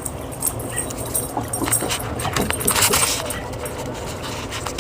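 A dog making small sounds, with a run of clicks and rustling from about a second in to about three and a half seconds in, over a steady low background hum.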